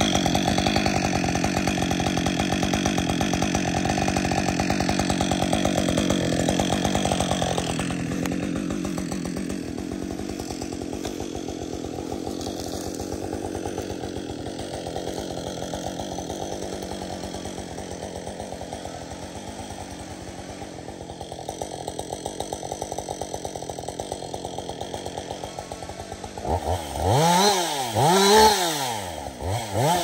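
Gas chainsaw running at idle, loud at first and then fainter as it is carried away. Near the end it is revved up and down three or four times.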